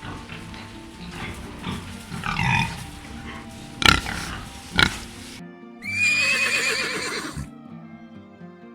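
Pigs grunting, with two sharp knocks, then after an abrupt cut a horse whinnying with a quavering call of about a second and a half, over background music.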